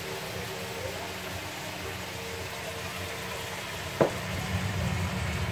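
Sliced vegetables and chicken sizzling in a frying pan, with a single sharp metal clink about four seconds in as the metal whisk knocks against the steel saucepan.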